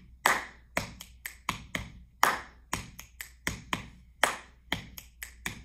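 Body percussion played by one person: chest pats, finger snaps and hand claps in a repeating six-stroke pattern, about two seconds to each cycle. The first stroke of each cycle is the loudest.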